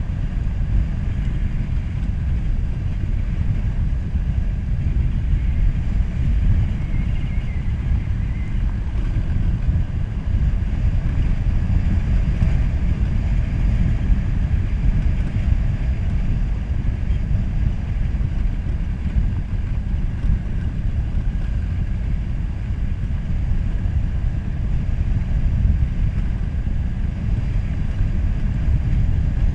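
Dirt bike being ridden on a gravel road: a steady, unchanging low rumble of engine and wind buffeting on the bike-mounted camera's microphone.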